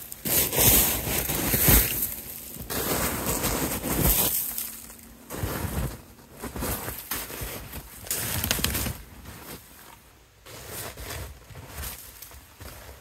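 Irregular bursts of rustling, scuffing noise close to the microphone, louder in the first part and fading later, with a brief low hum about four seconds in.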